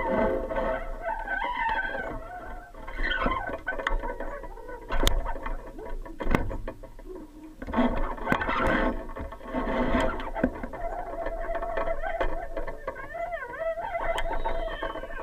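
Background music: a distorted electric guitar playing, with wavering bent notes near the end.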